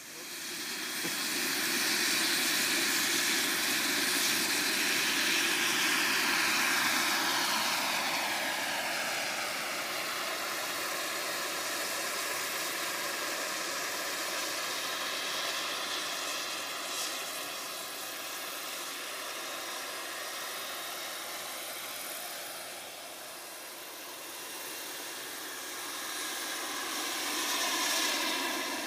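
Turbine-powered scale Hughes 500E model helicopter lifting off and flying: a steady turbine hiss and whine mixed with rotor noise. It grows louder in the first second or two, its whine glides down in pitch over the first several seconds, and it swells again near the end as the helicopter passes close.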